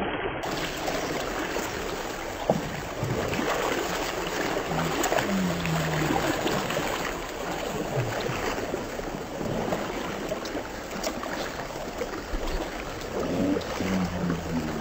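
Steady rushing of floodwater flowing across flooded ground.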